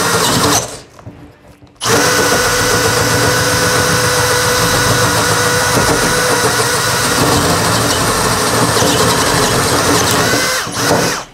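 Bosch GSB 185-LI 18 V cordless drill/driver boring into wood with a 35 mm spade bit. The drill stops under a second in, starts again about a second later and runs steadily with a motor whine. Its pitch rises just before it stops near the end.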